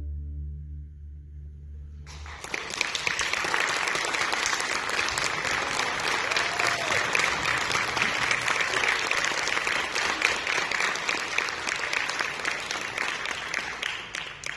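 The low strings of a school string orchestra let their final chord ring out and die away. Audience applause then starts about two seconds in and carries on steadily, dropping away at the very end.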